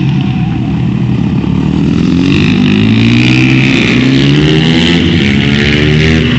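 Supermoto motorcycle engine revving up and falling back several times as it is ridden hard through gear changes and corners.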